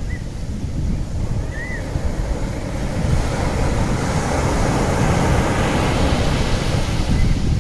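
Steady rushing noise of ocean surf and wind, with a few faint short chirps over it.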